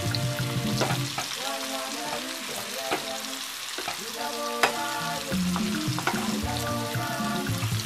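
Chicken strips deep-frying in hot oil in a frying pan: a steady, dense sizzle. A few sharp clicks come from the utensils knocking against the pan as the pieces are turned.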